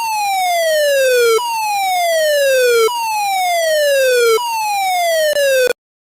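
Electronic EAS alarm siren tone played in reverse: a buzzy tone that repeatedly slides down in pitch, about one sweep every second and a half. It cuts off abruptly near the end after a shortened last sweep.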